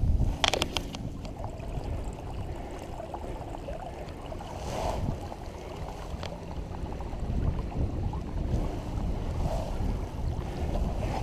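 Wind buffeting the microphone in a steady low rumble, over light water lapping at the shore, with a brief rustle of handling about half a second in.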